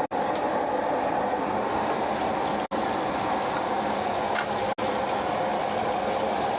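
Steady roaring hiss of wok cooking, a stove burner and food frying. It drops out for an instant three times.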